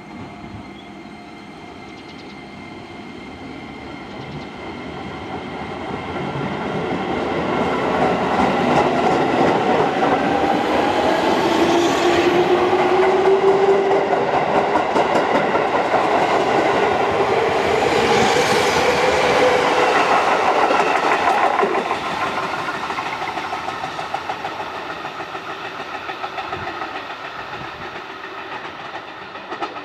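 JR 205 series 5000-subseries electric train pulling out and accelerating past: the VVVF inverter traction motors whine in rising tones over the clatter of wheels on rail joints. It is loudest in the middle and fades as the train draws away.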